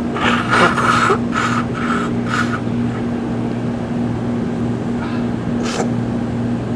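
A person blowing her nose hard, clearing a heavily running nose: one long blow, then three short ones in quick succession in the first few seconds. A brief sharp noise follows near the end.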